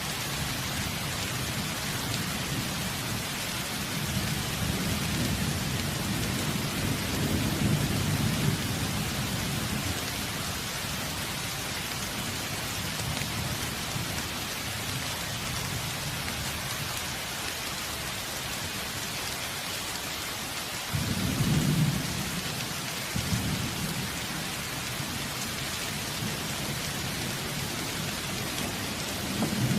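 Steady heavy rain falling, with low rolls of thunder swelling in from about four seconds in, again at about 21 seconds, and once more near the end.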